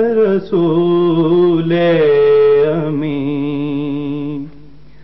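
A man singing a naat in long, wavering held notes, with a brief break about half a second in; the singing stops about four and a half seconds in.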